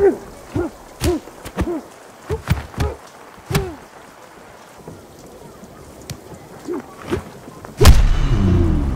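Two men grunting and shouting with effort in a hand-to-hand fight, with sharp slapping hits between the grunts. About eight seconds in comes one loud, heavy impact with a low rumble after it, the loudest sound here.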